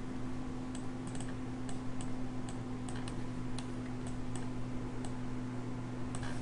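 Scattered sharp clicks of a computer mouse and keyboard, irregular at one or two a second, over a steady low electrical hum.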